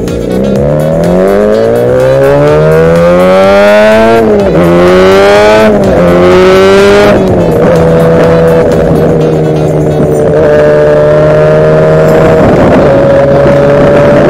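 Honda Gorilla mini bike fitted with a Yamaha 250 cc two-stroke engine, accelerating hard through the gears. The revs climb for about four seconds, then shift up three times in quick succession, and the engine settles at a steady cruise.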